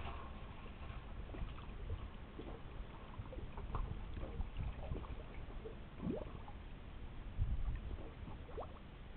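Water gurgling and sloshing, with short rising blips scattered irregularly over a steady low rumble.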